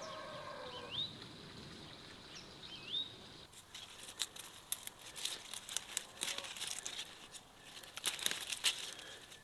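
A rooster's crow trailing off and two short rising bird chirps. Then, from about three and a half seconds in, tomato plants' leaves and stems rustle and crackle in quick sharp snaps as a hand works through the foliage.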